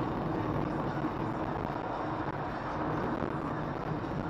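Steady engine and road noise inside a moving car, with no sudden events.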